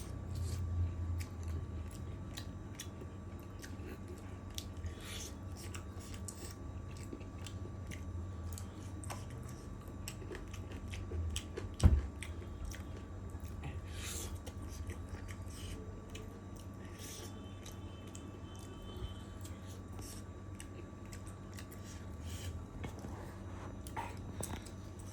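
Close-up eating sounds of a person chewing and biting chicken curry with rice, with many short wet mouth clicks. One sharp thump about halfway through is the loudest sound.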